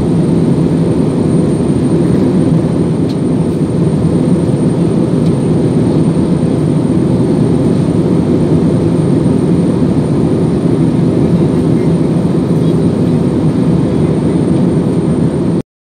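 Jet airliner cabin noise in flight: the steady, low rumble of the engines and airflow heard inside the cabin at a window seat, cutting off abruptly just before the end.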